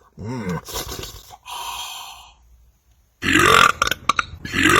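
A man belching loudly after drinking soda: a few short belches, a pause, then from about three seconds in a run of loud belches that repeat at an even pace, a little over one a second.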